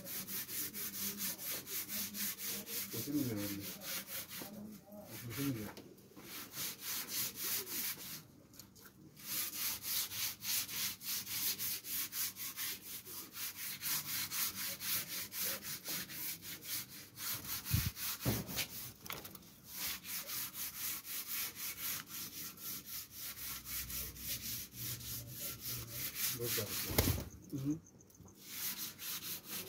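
Fast, regular scratchy rasping strokes that go on with a few short breaks, with a few low coos from doves in between.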